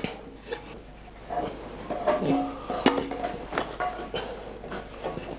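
A large metal bowl being emptied of stiff marzipan paste, with a scraper working the paste out: scattered scrapes, knocks and clicks of scraper and bowl, some with a brief metallic ring.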